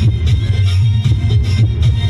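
Loud garba dance music with a heavy, steady bass beat.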